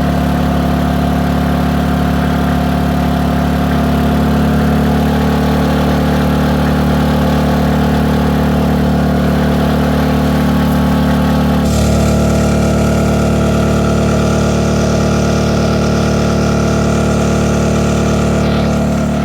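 Mech Marvels 2000-watt inverter generator running steadily under heavy load from two battery chargers. Its engine note changes about twelve seconds in. Under load it is a little more vocal than in economy mode, but not bad.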